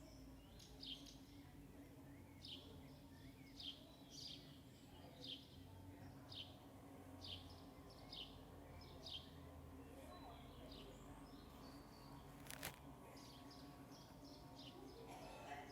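A small bird chirping faintly over and over, short falling chirps about once a second with a gap past the middle, over a steady low hum. A single sharp click sounds about three-quarters of the way through.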